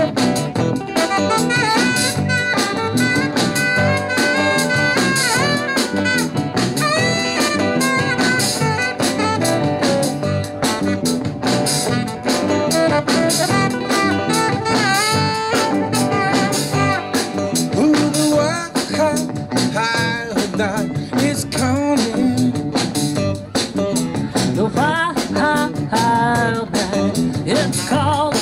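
Live soul and R&B cover band playing: electric guitar, bass, drum kit and saxophone, with a woman singing lead.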